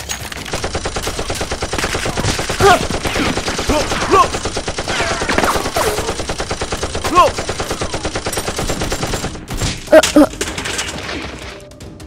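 Automatic gunfire sound effect: a rapid, steady stream of shots, several a second, that stops a little after nine seconds. A few short cries bend in pitch over the firing, with two loud ones at about ten seconds.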